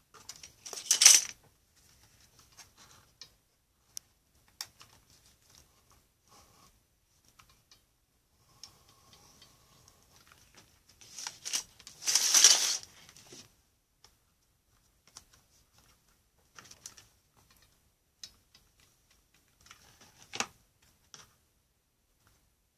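Hands handling a cellophane-and-craft-stick model: scattered light clicks and short rustles, with louder rustling about a second in, a longer, loudest burst around twelve seconds in as a hand covers the camera, and one more near twenty seconds.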